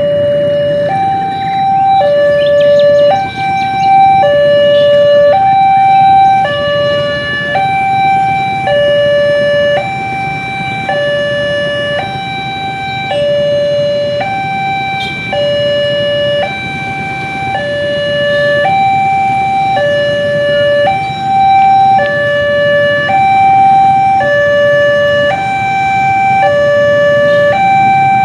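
Railway level-crossing warning alarm sounding from the horn speaker on the signal post: a loud electronic two-tone alarm, alternating between a lower and a higher pitch about every three-quarters of a second, over a low rumble.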